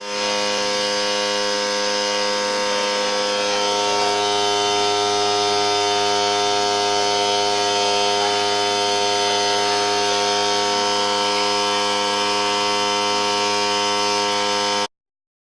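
Electric fan running: a steady motor hum with a whirr of air, cutting off abruptly near the end.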